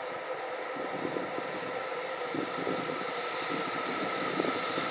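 EF66 100-series electric locomotive hauling a container freight train, approaching on a curve: its running noise grows steadily louder, with a steady whine.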